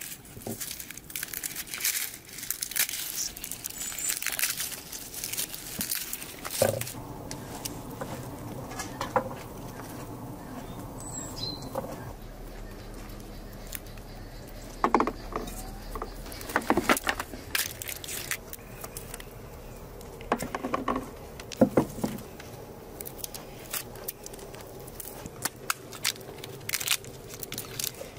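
Dry papery garlic skins crackling and rustling as cloves are peeled by hand, with a few sharper clicks from a small knife trimming a clove. Near the end, brittle tamarind pod shells crack as they are broken open.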